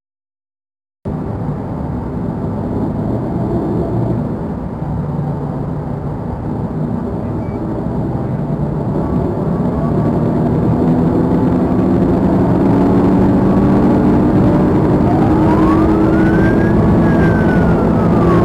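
Police cruiser's engine and road noise from inside the car, cutting in about a second in and growing louder as the engine note climbs slowly with the car accelerating. Near the end a siren starts a wail that rises and then falls.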